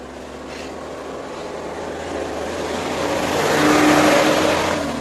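A motor vehicle passes close by, its engine and tyre noise swelling to a peak about four seconds in, then fading.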